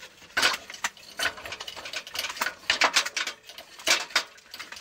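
A Metzeler motorcycle tire being forced by hand over a lubricated wheel rim: its rubber bead creaks and squeaks against the rim in a string of short, irregular bursts, with a few knocks.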